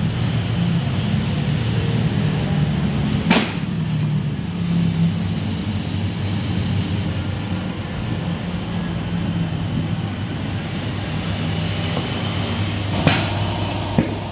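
Tyre being mounted onto an alloy wheel on a tyre-changing machine, over a steady low mechanical hum. A sharp snap comes about three seconds in, and two more come near the end.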